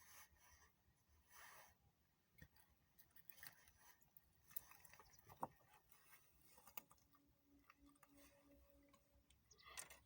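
Near silence, with faint scattered clicks and rustles, one sharper click about five and a half seconds in, and a faint pulsing hum from about seven to nine seconds.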